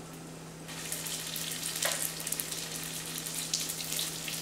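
Egg rolls shallow-frying in a little oil in a skillet, a steady sizzle with fine crackling that grows louder just under a second in. A short knock near two seconds in, as of tongs on the pan.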